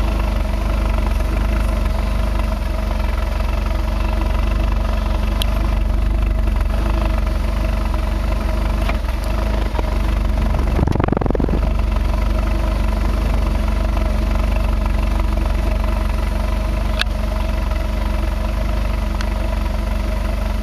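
2005 Ford Focus 2.0 Duratec inline-four idling roughly, which the owner believes is lean running, suspecting an exhaust leak, a plugged catalytic converter or a bad O2 sensor. A brief low rumble about halfway through.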